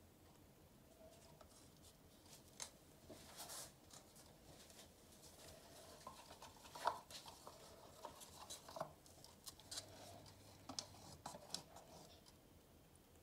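Faint handling noise: scattered light clicks and scrapes of small craft items being moved, the sharpest tick about seven seconds in.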